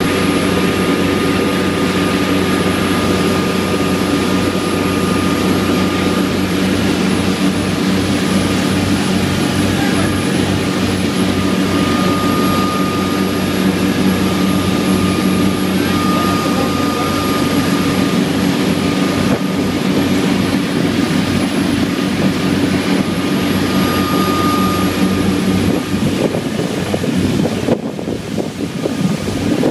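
A charter fishing boat's engine runs steadily under way as a constant loud drone, with a thin high whine that comes and goes. A few seconds before the end the engine note fades and drops lower.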